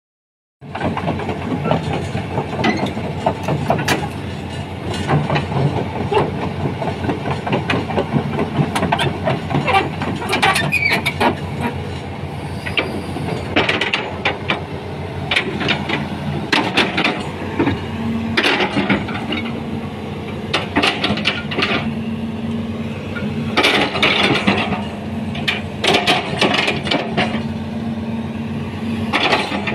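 Hitachi ZX200 crawler excavator working, its diesel engine running steadily under frequent metallic clanks and rattles from the steel tracks and digging gear.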